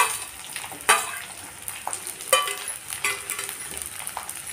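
Chopped onions sizzling in hot oil in a kadhai as they are added, with several sharp clinks of a steel spoon scraping them off a steel plate against the pan.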